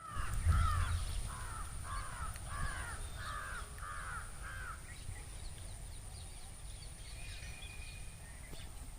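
Parrots squawking: a run of about eight harsh calls, roughly two a second, then fainter chirps, over a low rumble.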